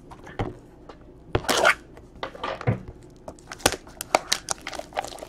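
A trading-card box and its wrapper being opened by hand: scattered crinkling, a couple of short tearing rasps, then a quick run of clicks and taps near the end.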